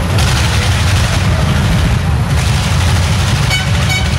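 Vintage tractor engine running with a rapid, loud chugging exhaust. A couple of short high tones sound near the end.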